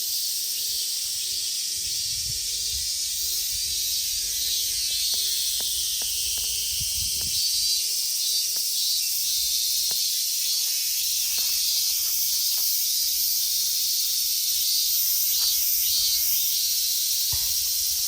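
Chorus of cicadas (semi) in summer, a dense, high-pitched buzzing that holds steady without a break.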